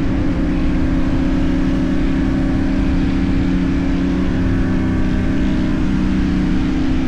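CFMoto 450NK's parallel-twin engine through an aftermarket LeoVince exhaust, running at a steady cruise. Its pitch steps slightly a couple of times.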